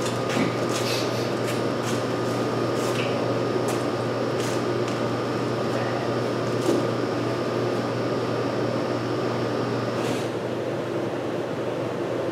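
Steady mechanical hum with a thin high whine that stops about ten seconds in, and a few light clicks and taps as parts are handled in a car's engine bay.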